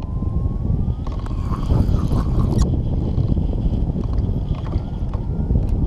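Wind buffeting the microphone: a steady low rumble, with a faint thin wavering whistle in the background.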